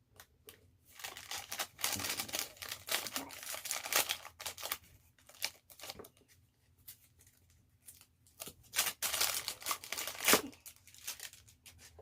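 Packaging being handled, crinkling and tearing as parts of a Dyson Airwrap are unwrapped and taken from the box, in two spells, with a sharp knock near the end.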